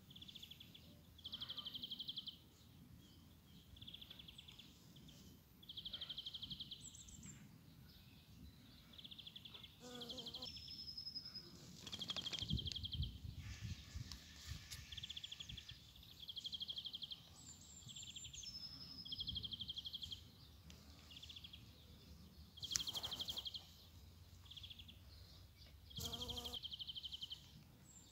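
Outdoor background of wild animal calls: short high-pitched buzzy trills repeat every second or two, and a few higher whistled notes fall in pitch, likely birds.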